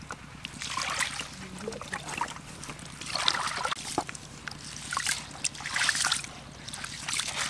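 Raw rice being washed by hand in a large aluminium basin of water: hands scooping, rubbing and squeezing the wet grains, with splashes and sloshes about once a second.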